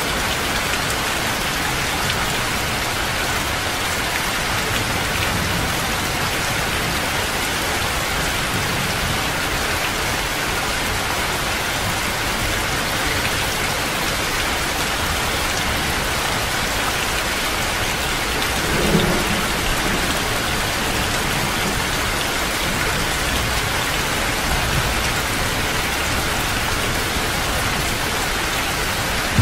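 Heavy rain falling steadily and densely, with low rumbles of thunder; the most distinct rumble comes about two-thirds of the way through.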